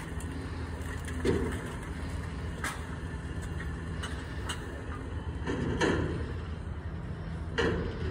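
Refuse truck's engine running steadily with a low hum, swelling briefly three times, with scattered sharp clanks and knocks in between.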